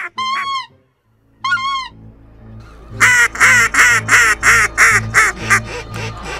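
Geese honking: two single calls in the first two seconds, then a loud, fast run of calls, about two or three a second, from about halfway through.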